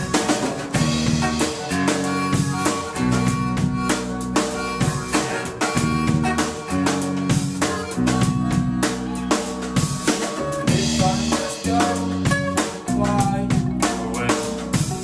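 Live band playing an instrumental passage with no vocals: a drum kit with snare rimshots and bass drum keeps a steady beat under bass, accordion and guitar.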